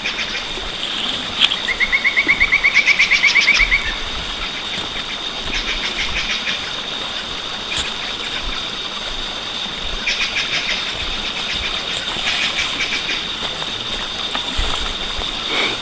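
Wild birds calling: a fast, loud trill lasting about two seconds near the start, then short buzzy calls repeated every few seconds over a steady high whine.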